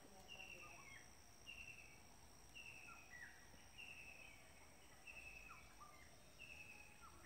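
Near silence outdoors: a faint short falling chirp repeats about once a second over a faint steady high-pitched hum.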